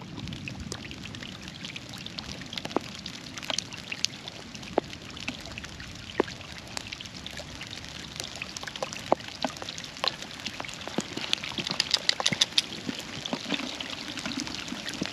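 Rain falling, with many sharp ticks of single drops over a steady wash of water noise, growing heavier toward the end as it starts to pour.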